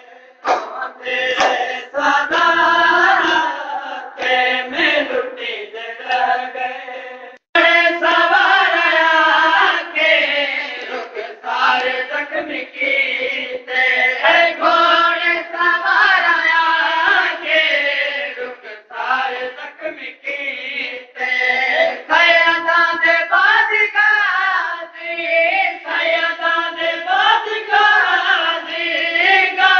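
Group of voices chanting a noha, a Shia mourning lament, in a steady sung rhythm. It drops out abruptly about seven seconds in and comes back at once.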